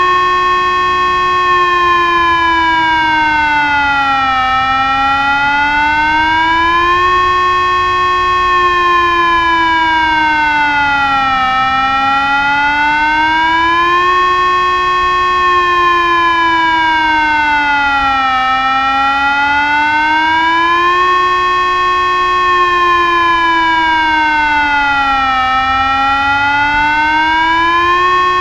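TESLA UEAJ-600 electronic siren sounding the Czech 'General Warning' (Všeobecná výstraha) signal. It is a steady wailing tone that rises, holds briefly at the top, then falls, about once every seven seconds.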